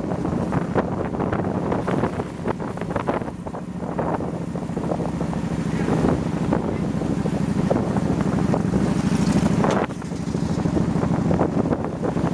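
Wind buffeting the microphone of a moving motorbike, over the steady low run of the bike's engine. It grows louder for a few seconds in the middle, then drops suddenly about ten seconds in.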